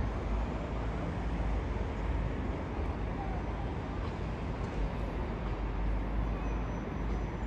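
Widebody twin-engine jet airliner passing overhead on approach, a steady low rumble of jet engines.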